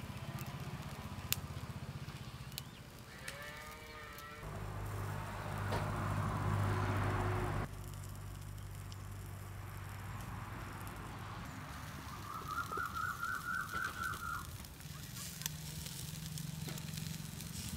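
Rural outdoor ambience: a cow moos a few seconds in, and about twelve seconds in there is a rapid run of about ten short high chirps. A steady low hum runs underneath.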